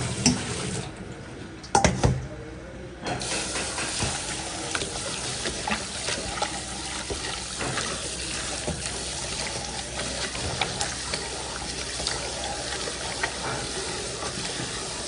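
Tap water from a spray head running into a stainless steel bowl while hands rub and rinse pork stomach in it, with small splashes. Two loud knocks come in the first two seconds, and the water starts suddenly about three seconds in.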